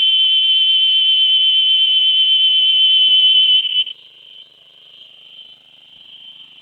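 Cicada singing: a loud, shrill, steady buzz that cuts off sharply about four seconds in, leaving a much fainter buzz at the same pitch.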